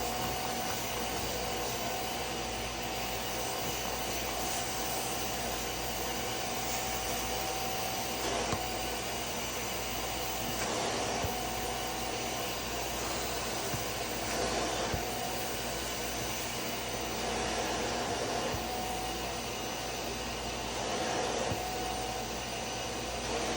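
Bissell Little Green Max Pet portable carpet and upholstery spot cleaner running steadily, its suction motor whirring with a faint steady whine while it sprays and sucks up a stain from a mattress.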